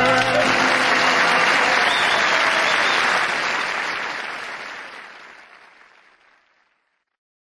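Studio audience applauding at the end of a sung theme song. The applause fades out from about four seconds in and is gone two or three seconds later.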